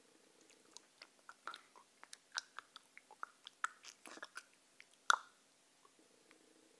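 Wet mouth noises close to the microphone: lips smacking and sucking in a string of irregular sharp clicks for about four seconds, the loudest a little after five seconds in.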